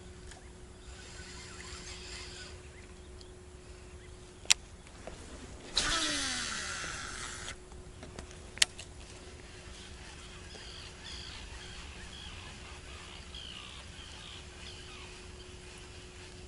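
A fishing cast with a reel. A sharp click, then about a second later a rushing whir of line paying out, falling in pitch and fading over about two seconds, then another sharp click as the reel is closed. Faint bird chirps follow.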